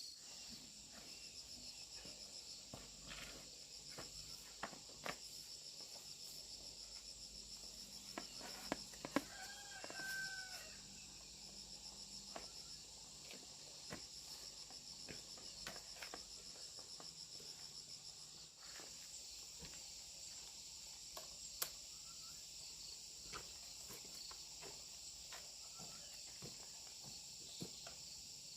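A steady, high-pitched chorus of crickets and other insects, with scattered light clicks and knocks throughout. About nine seconds in comes a short call from a chicken.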